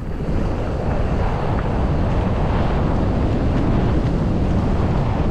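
Wind rushing over the camera microphone of a mountain bike descending fast, mixed with the rumble of tyres rolling over a dirt trail. It grows louder in the first half-second and then holds steady.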